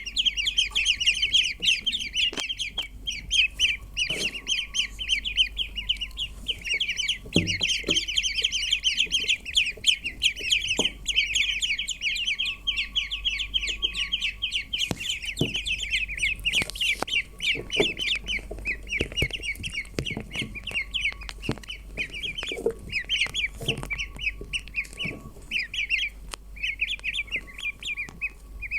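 A brood of ducklings peeping continuously: many rapid, high, overlapping peeps, with a few soft knocks scattered through.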